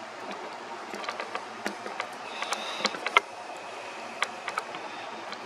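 Camera and tripod being handled and re-aimed: scattered clicks, taps and creaks, the loudest a little after three seconds in. A faint steady high tone runs for about two seconds in the middle.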